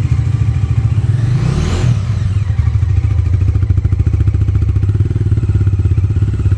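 Single-cylinder Bajaj Dominar motorcycle engine idling with a steady low exhaust beat. There is a brief swell about one and a half seconds in.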